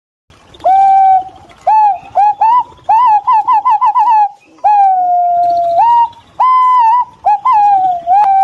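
Green pigeon singing: a series of clear, fluting whistles pitched close together, some bending up or down, with a quick warbling run about three seconds in and a long, slowly falling whistle about five seconds in.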